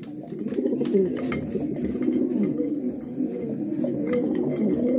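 Several racing pigeons cooing together inside the loft, their low, wavering coos overlapping continuously, with a few light clicks among them.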